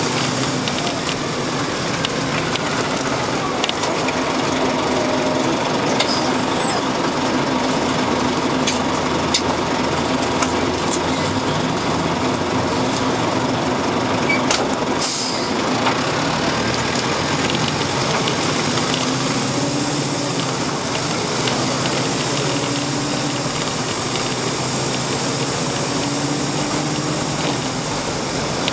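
Detroit Diesel Series 50 engine of a Nova RTS city bus, heard from inside the bus as it rides in traffic. The engine note rises and falls several times, and there is a short hiss about halfway through.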